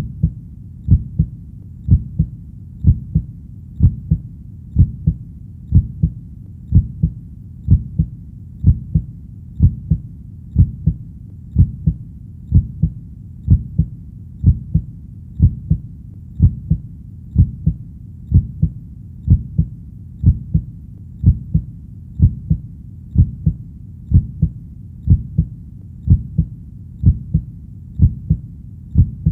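Heartbeat, a steady lub-dub double thump about once a second, low and deep, over a steady low rumble.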